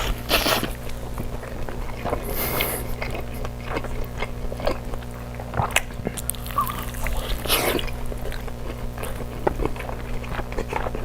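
A person biting into and chewing a large burger: irregular wet mouth sounds and bites, over a steady low hum.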